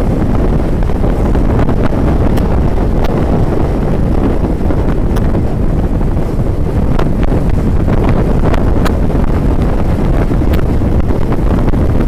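Wind buffeting the microphone of a helmet-mounted camera on a moving motorcycle: a loud, steady low rumble.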